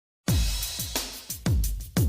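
Background music with a deep kick drum beating about twice a second, starting about a quarter second in.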